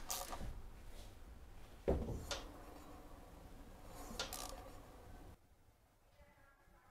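A few sharp metallic clicks and knocks from a T-handle tool working a bolt at the scooter's wheel hub and brake, with a heavier knock about two seconds in and a short cluster of clicks around four seconds. It drops to quiet room tone near the end.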